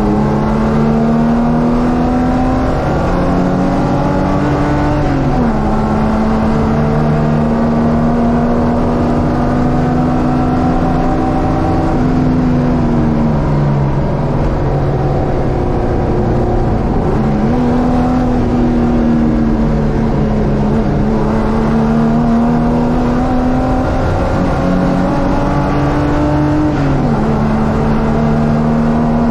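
Ford Capri race car's engine running hard at racing speed, its pitch climbing slowly and then dropping sharply several times as it changes gear, with a longer fall in revs near the middle.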